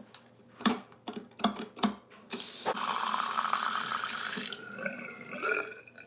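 Bathroom sink faucet running hard into the basin for about two seconds and draining straight down the open pop-up drain, which the plumber shows working after his repair. A few sharp clicks come before the water. After it shuts off, quieter draining follows with a thin high ringing tone.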